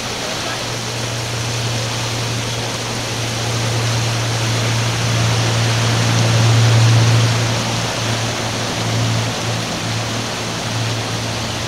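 Engines of a flybridge sportfishing boat droning as it runs past through the inlet, swelling to their loudest a little past the middle and then easing off, over a steady rushing noise.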